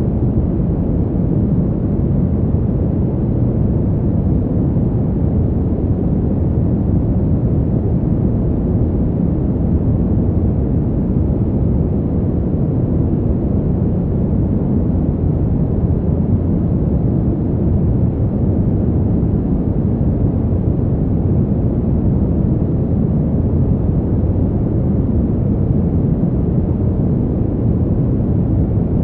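Fan heater's blower running steadily: an unchanging deep whoosh of moving air, with no ticks, clicks or changes in speed.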